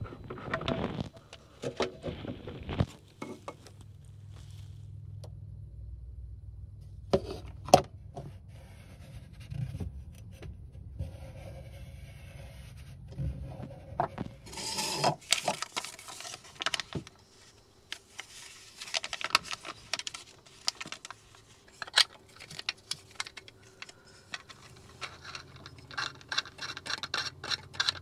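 Clicks, knocks and scrapes of plastic sink-drain parts being handled: the strainer's plastic locknut being unscrewed under the sink, the drain being worked free of the stainless sink basin, and the new strainer parts being handled. A louder scraping rush comes about halfway through, and a low hum runs underneath in places.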